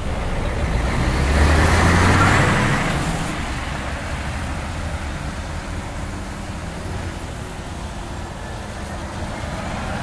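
Heavy diesel trucks driving off past on a wet road. Engine rumble and tyre noise swell as one passes close about two seconds in, then settle to a steadier, quieter rumble as another truck comes up near the end.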